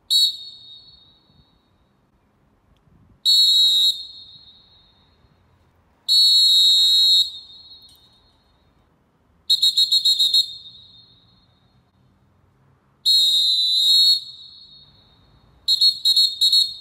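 Fox 40 Classic CMG pealess referee's whistle blown six times: a short blast, two longer steady blasts, a rapidly pulsed choppy blast, a wavering wavy blast, then another choppy blast. Each blast rings on in a fading echo.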